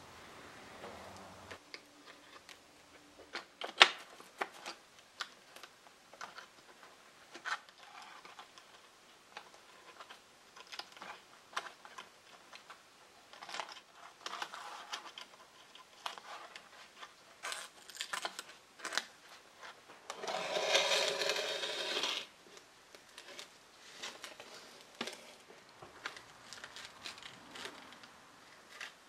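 Small handling sounds of old twisted hanging wire being untwisted and pulled from the back of a wooden mirror frame: scattered light clicks and ticks, with a louder noisy stretch of about two seconds about two-thirds of the way through.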